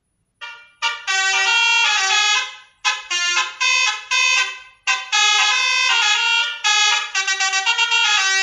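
Telolet basuri horn tune played from a small telolet sound module through a speaker: a fast melody of horn-like notes stepping up and down, in three phrases with short breaks between them.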